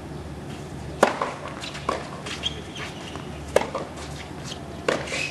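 Tennis serve and rally. A sharp racket strike on the ball about a second in, the loudest hit, is followed by several more hits and ball bounces spaced roughly a second apart.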